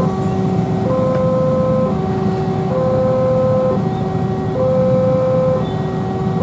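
Railway level-crossing warning alarm sounding its two-note signal: a higher and a lower electronic tone alternating steadily, each held just under a second, over a steady background of road traffic.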